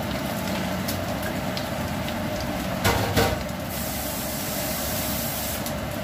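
Brussels sprouts and bacon sizzling in a frying pan over a steady background hum. About three seconds in, the wooden spoon knocks twice against the pan as it is set down in it.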